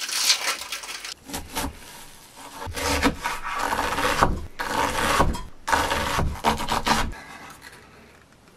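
Knife cutting vegetables on a cutting board: a run of uneven strokes that dies away about seven seconds in.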